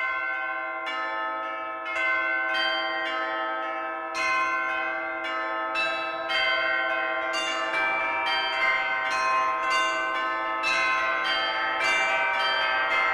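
Several church bells ringing together, struck one after another about twice a second, each tone ringing on and overlapping the next; the strikes come thicker in the second half.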